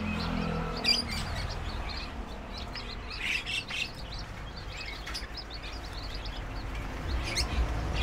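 A flock of caged white-eyes (pleci) chirping, many short high calls overlapping throughout, over a steady low hum.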